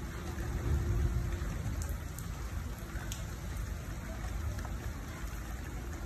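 Steady rain falling on wet paved ground, an even hiss with a low rumble underneath.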